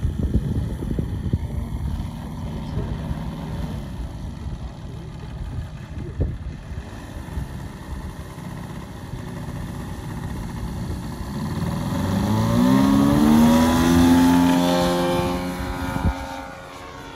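DA-200 four-cylinder boxer engine and propeller of a 40% scale Extra 330 LX model plane running at low throttle, with wind buffeting the microphone, then opened up for takeoff. The engine note rises in pitch and loudness, loudest about three seconds before the end, then falls away as the plane climbs off.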